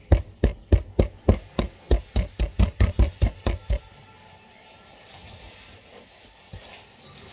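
Metal spoon stabbing again and again into a frozen purple fruit mixture in a bowl, breaking it up: dull thuds about four a second that stop about four seconds in.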